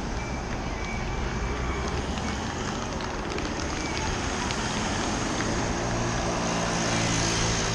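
Motor vehicles passing on the road: a steady rush of engine and tyre noise, with one engine's hum building and growing louder in the last few seconds.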